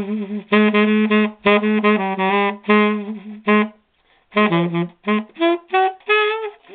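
Tenor saxophone playing a string of short, separate notes, with a brief break a little past halfway before the phrases resume.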